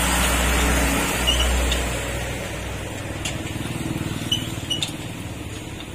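A motor vehicle's engine rumbling, loudest at first and fading away over a few seconds.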